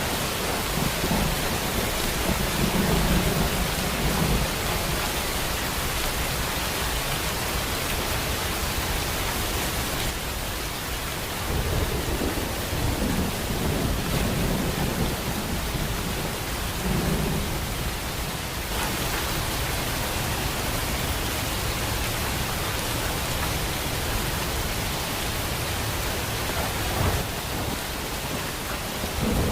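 Steady heavy rain hissing, with low rumbles of thunder rolling in a second or two in and again around the middle.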